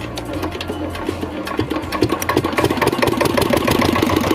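Farm irrigation pump engine running with a rapid, even beat that picks up and gets louder about two seconds in, as it comes up to speed after being started.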